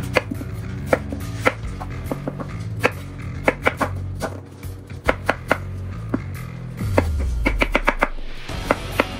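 Chef's knife slicing a peeled green apple on a wooden cutting board: irregular sharp knocks of the blade striking the board, with a quick run of cuts near the end. Background music plays underneath.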